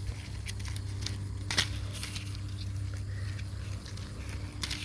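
Dried black bean pods and stems crackling and snapping as they are handled, in scattered irregular clicks with one sharper snap about a second and a half in, over a steady low hum.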